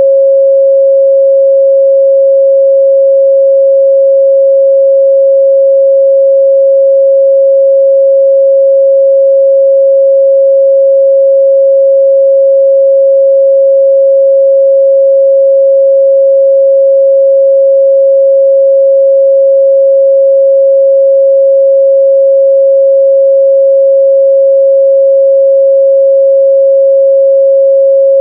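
A pure 545 Hz sine-wave test tone, held steady and loud at one pitch with no change.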